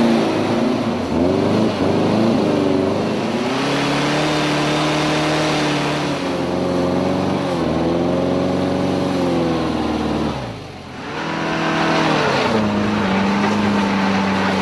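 Volkswagen Beetle engine revved hard, its note rising and falling, while the wheels spin in mud. About ten seconds in it drops away, and a second car engine takes over, revving at a steady high note as its wheel spins on snow.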